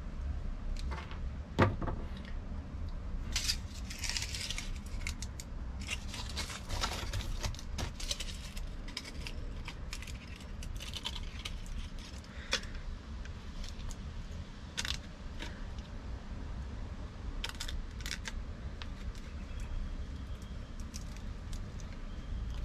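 Hands crinkling and folding a shiny foil wrapper around a branch lure: irregular crackles and small clicks, busiest in the first half, with one sharper click about one and a half seconds in, over a low steady rumble.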